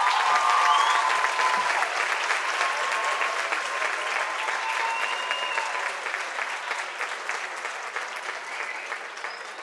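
Audience applauding and cheering after a dance routine, with high-pitched whoops and shouts over the clapping, strongest in the first couple of seconds; the applause slowly dies down.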